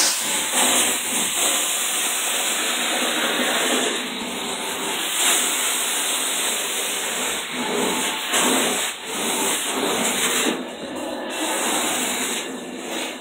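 Suction hose with a hand tool drawn over carpeted stair treads: a steady, hissing rush of air that swells and dips a little as the tool is worked back and forth.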